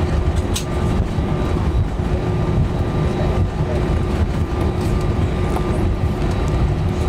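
Cabin noise of an Airbus A320 taxiing on one engine: a steady low rumble with a constant hum over it.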